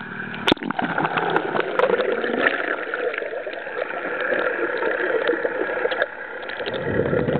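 Water rushing and splashing around a dinghy under way, a dense hiss crowded with small splashes and clicks; the sound dips briefly about six seconds in, then fills in again.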